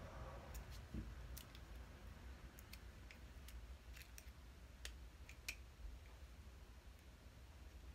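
Near silence with faint, sharp clicks at irregular intervals, about a dozen, from fingers and fingernails handling a small cosmetic item.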